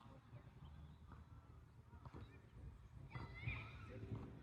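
Faint, distant voices from across a soccer field, with one high, wavering shout about three seconds in.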